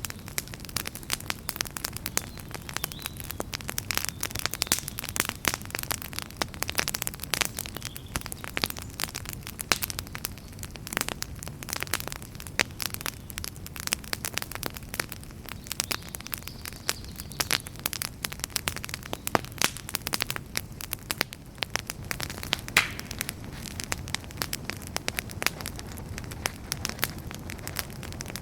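Wood campfire crackling steadily, with dense irregular snaps and pops, a few sharper and louder than the rest, over a low steady rush.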